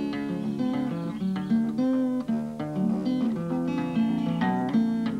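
Acoustic guitar fingerpicked in Piedmont blues style: a steady, even picking pattern with a bass line under a plucked melody, played without singing.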